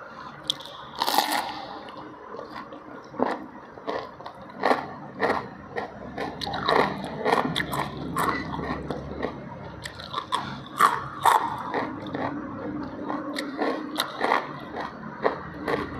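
Close-miked eating: crisp, crunchy bites into raw cucumber and wet chewing, with a string of irregular crunches; the loudest bite comes about a second in.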